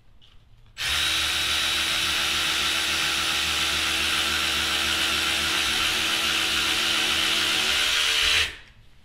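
Snap-on 14.4 V cordless ratchet's motor and gear head running at full speed with a steady whir, starting about a second in and cutting off near the end. The head is freshly packed with grease and wrapped in a rag, and the run is to throw out the excess grease.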